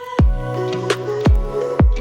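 Music with deep kick-drum beats, sharp snare hits in between and a steady bass line.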